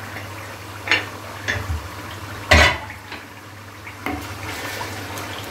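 A few clinks and knocks of cookware against a pan, the loudest about two and a half seconds in, then a wooden spatula stirring the simmering meatball qorma sauce.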